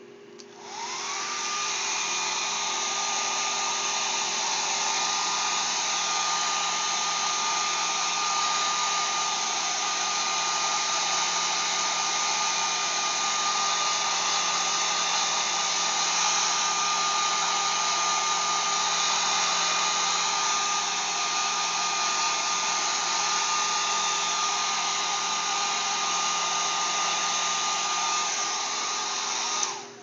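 Handheld hair dryer switched on about a second in, its motor whine rising quickly to a steady high tone over a rush of blowing air, then running evenly until it is switched off near the end.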